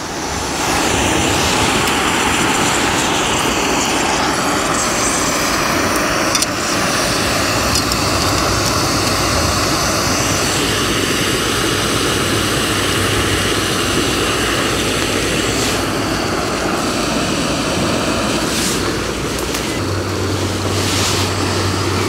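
Planet X gas canister stove's burner running under its pot, a steady loud hiss that starts right after it is lit. A low hum comes in near the end.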